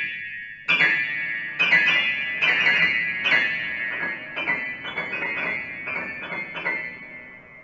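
Grand piano played high on the keyboard: struck notes and chords that ring and die away, coming faster after a few seconds and fading out near the end.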